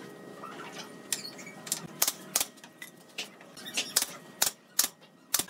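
Pneumatic nail gun firing nails into pallet-wood slats: a series of about eight sharp shots at irregular intervals.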